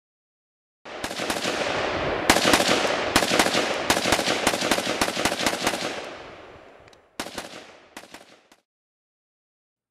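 Kalashnikov (AK) rifle firing a fast string of shots, about five a second for several seconds, the reports running together and then dying away, with two more separate sharp reports near the end.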